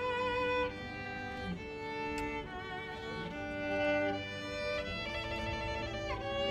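Slow string music led by a violin, playing long held notes with vibrato over lower string parts.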